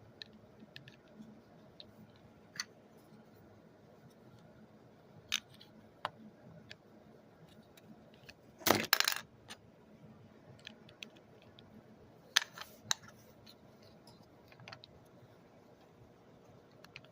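Scattered light clicks and taps of hard plastic toy parts being handled, with a louder clatter about nine seconds in and another brief clatter around twelve to thirteen seconds in.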